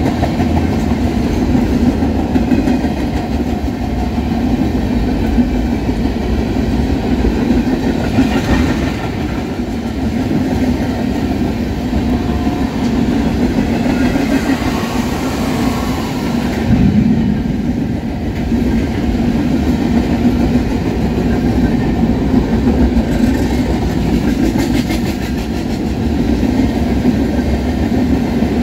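Freight cars of a Union Pacific manifest train (tank cars and covered hoppers) rolling past at speed: a steady, loud rumble of steel wheels on rail with the clickety-clack of wheels over rail joints.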